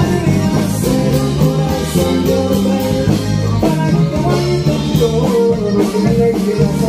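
Regional Mexican band playing live: electric bass, accordion, guitar and drums in a continuous up-tempo groove.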